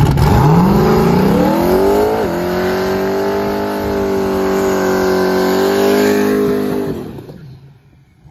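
Turbocharged 427 cubic-inch LSX V8 in a New Edge Ford Mustang drag car revving up as it spins its rear tyres in a burnout. It climbs over the first two seconds, dips briefly, holds a steady high rpm for about five seconds, then falls away near the end.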